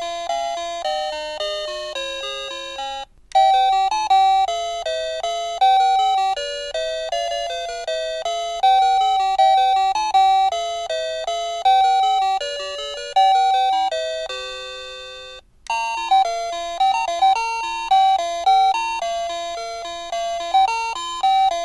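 Ang USA plug-in wireless doorbell receiver playing electronic chime melodies one after another. A short tune ends about three seconds in, a longer one runs until about fifteen seconds in, and another starts a moment later.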